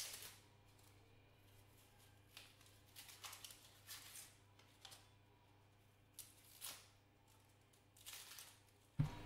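Faint, scattered crackles and rustles of a red onion being peeled and cut with a knife, over a steady low hum.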